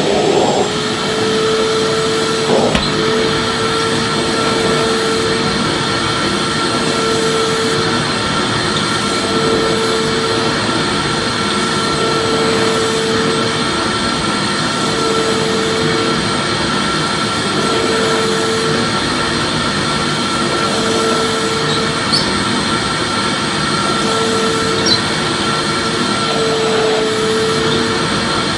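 Vacuum cleaner running steadily: a continuous motor hum and rush of air, with a mid-pitched tone that fades in and out about every two seconds.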